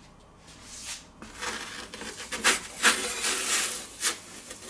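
Two half-round metal pizza peels scraping and rubbing across the stone plate of a G3 Ferrari electric pizza oven as a pizza is slid onto it. The rasping strokes start about a second and a half in, with a few louder scrapes.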